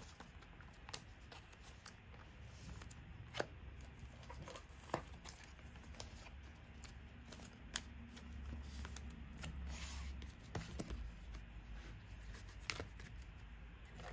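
Trading cards being handled and slid against one another, faint, with a few sharp flicks or taps spread out.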